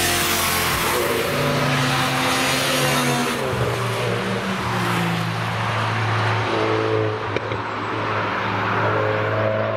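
Cars passing at speed on a race track, with engine and tyre noise loudest near the start and then fading as they move away. Background music with held bass notes changing every few seconds runs underneath.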